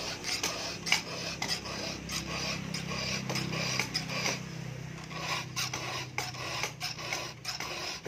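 Round file rasping against the cutters of a chainsaw chain during sharpening, short scraping strokes about twice a second.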